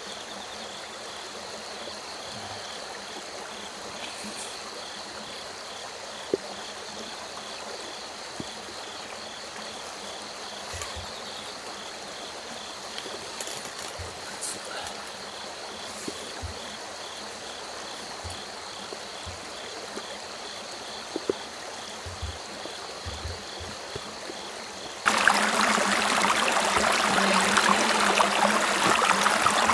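Faint steady water noise with a high chirping that repeats about twice a second and a few small knocks. About 25 seconds in it switches suddenly to the loud, close rush of a shallow river running over stones.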